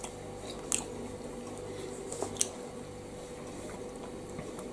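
A person chewing a mouthful of microwaved tuna pasta bake with the mouth closed, giving a few soft, wet mouth clicks over a steady low hum.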